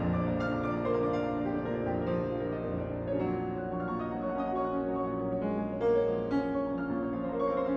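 Solo piano playing a classical piece, with many notes sustained and overlapping as new ones are struck.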